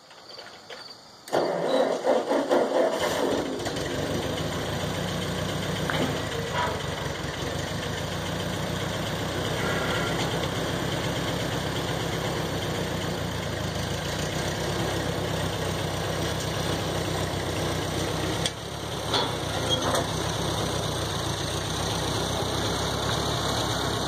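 A tractor engine starts about a second in, runs unevenly for a couple of seconds as it catches, then settles into steady running. About eighteen seconds in the engine sound dips briefly and there are a few knocks.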